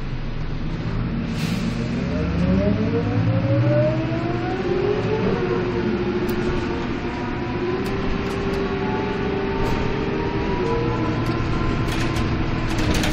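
Karosa B931 city bus heard from inside the cabin, accelerating: its engine and drivetrain note rises in pitch over the first few seconds, holds, then climbs again, with a few short clicks or rattles.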